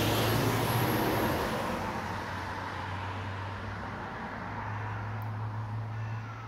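A car passing on the road: its tyre and engine noise is loudest at the start and fades away over the first few seconds. A steady low hum runs underneath.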